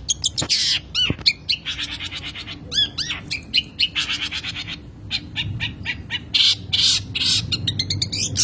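Long-tailed shrike (cendet) singing a fast, rambling song with a rich repertoire: quick chirps, arching whistled notes and harsh buzzy phrases run together with no set order.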